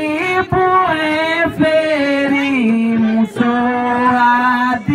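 A woman singing solo into a handheld microphone, holding long notes that slide and step down in pitch, with brief breaths between phrases.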